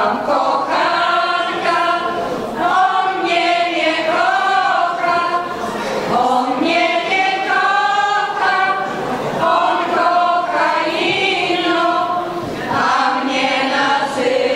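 A women's folk ensemble singing together unaccompanied, in held notes that run in phrases with short breaths between them.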